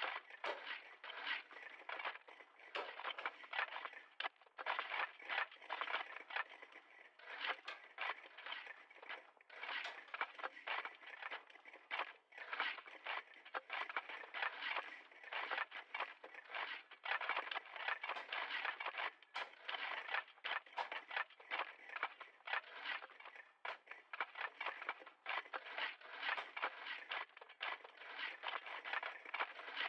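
Several shovels digging: a dense, continuous run of short, irregular scraping strokes that overlap one another.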